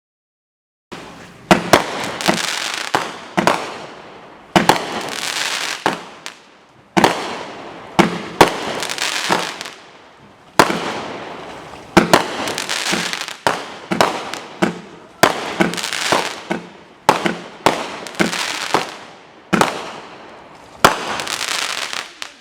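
Machine Made Fireworks Nano Tech 200-gram firework cake firing its shots in quick succession, starting about a second in: a sharp bang roughly every second, each followed by fading crackle.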